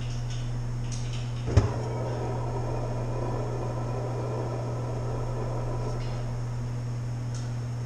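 A sharp metal clank at a propane brewing burner about one and a half seconds in, followed by a few seconds of hiss that fades away, over a steady low hum. The burner's propane tank has run out of gas.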